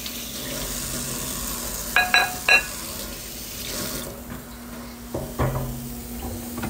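A steady hiss stops suddenly about four seconds in. About two seconds in come three quick, ringing metallic clinks, and a couple of soft knocks follow about five seconds in.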